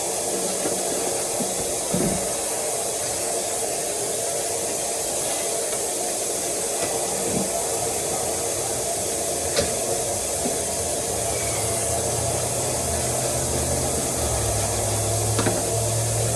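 Hot tap water running steadily into a sink while containers are washed, with a few light knocks of the containers being handled.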